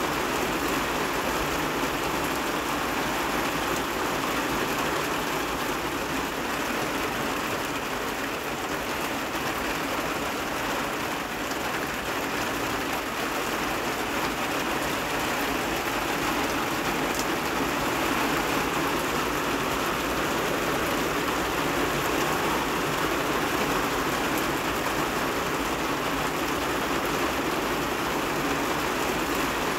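Steady rain falling outdoors: an even, unbroken hiss with no pauses.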